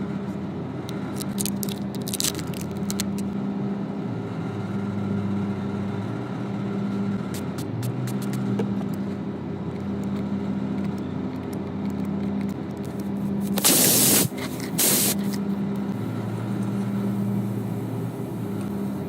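A steady mechanical hum, with two short bursts of loud hissing about fourteen and fifteen seconds in.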